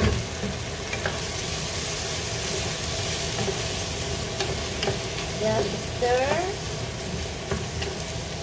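Food sizzling and frying in a pan while a wooden spatula stirs it, with scattered clicks of the spatula against the pan.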